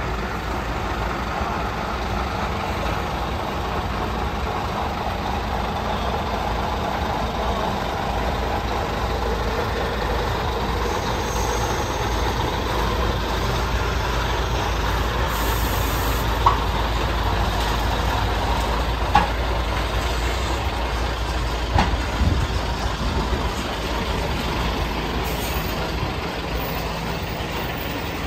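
Heavy truck's diesel engine running steadily at low speed while it slowly tows a trailer-mounted water well drilling rig, with a few short sharp knocks in the second half.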